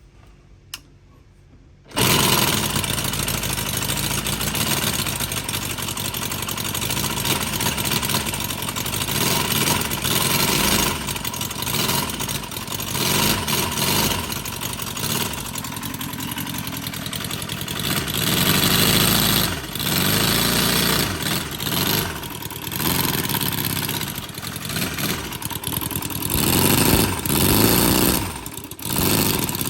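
Panther Pup 45cc air-cooled four-cylinder four-stroke model petrol engine starting up about two seconds in, then running with several swells in loudness. It runs with rattles that the owner puts down to worn timing gears.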